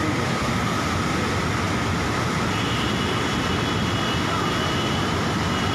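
Steady rushing of the Swat River in flood, a fast torrent running at full spate.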